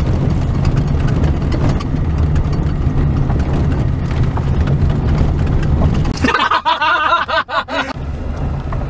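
Chevrolet Trailblazer driving over a rough dirt trail: a steady low engine rumble with a clatter of small rattles and knocks from the bumpy ground. About six seconds in the rumble cuts off for about two seconds while a high, warbling pitched sound is heard, then the rumble comes back.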